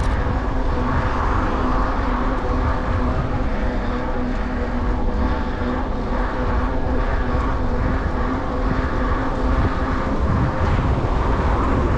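Steady rushing wind and riding noise on a bike-mounted camera during a bicycle ride, with a low rumble and a steady hum at several pitches underneath.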